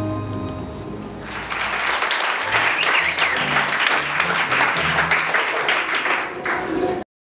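Held musical tones fading out, then an audience applauding from about a second in; the applause cuts off suddenly near the end.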